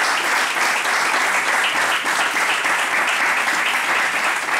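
Audience applauding steadily in a hall, a dense sustained round of clapping.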